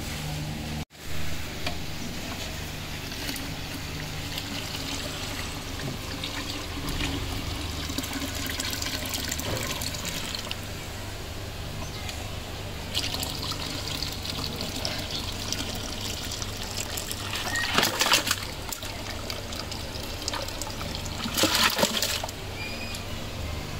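Cooked beef trotters and their broth poured from one aluminium pot into another pot of spiced broth: liquid splashing and pouring in two loud surges near the end, over a steady background hiss and hum.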